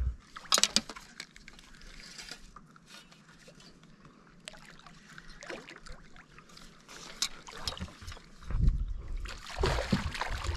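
A hooked smallmouth bass thrashes and splashes at the water's surface beside a small fishing boat, loudest near the end. A few sharp knocks from handling in the boat come about half a second in, with light clicks during a quieter stretch in the middle.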